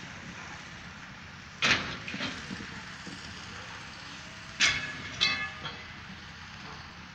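Two loud metal clanks about three seconds apart, each followed by a smaller rattle. The second rattle rings briefly, over a steady background rumble.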